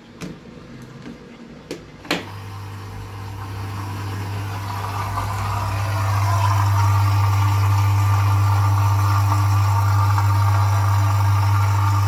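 A Samsung dishwasher that is showing a 1E error code: a few light clicks from the control panel, then, after a louder click about two seconds in, its pump starts and hums steadily. The hum builds over the next few seconds and then holds.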